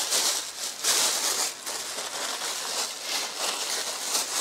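Thin clear plastic packaging bag crinkling and rustling as it is handled and pulled open, with uneven rustles that are louder in the first second and a half.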